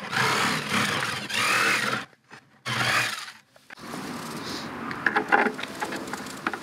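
Corded jigsaw cutting through the side of a plastic 5-gallon bucket, in two runs: about two and a half seconds, a short stop, then under a second more. After that, quieter scrapes and a few light knocks as clear plastic tubing is handled against the bucket.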